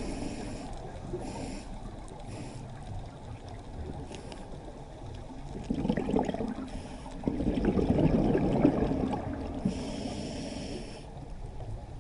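A scuba diver breathing through a regulator underwater: short hissing inhalations, three near the start and one about ten seconds in, between louder low burbling of exhaled bubbles around the middle, over a steady underwater rumble.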